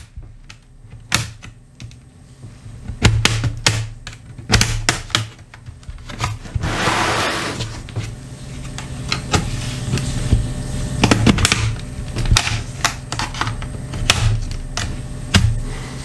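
Plastic bottom case of a Dell Inspiron 14 3452 laptop being pried along its seam with a small metal pry tool: an irregular string of sharp clicks and snaps as the case's clips pop loose, with a brief scraping rustle about seven seconds in.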